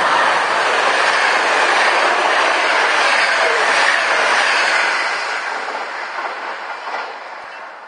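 Passenger train with coaches running through the station at speed: a loud, steady rush of steel wheels on rail as the coaches pass, fading away from about five seconds in, with a few sharp clicks near the end as the last wheels go by.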